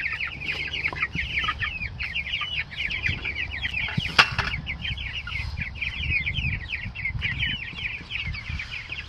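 A flock of young meat chickens peeping constantly, many short falling peeps overlapping one another, with a single sharp click about four seconds in.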